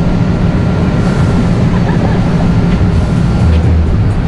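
Boat's idling outboard engine, a loud, steady low rumble.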